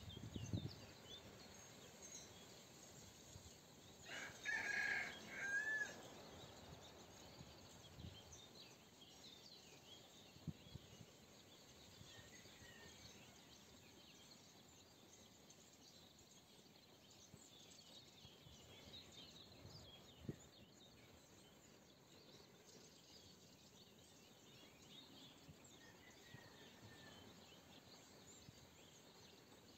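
A rooster crowing once, a cock-a-doodle-doo of about two seconds, a few seconds in. Faint chirps of small birds run underneath.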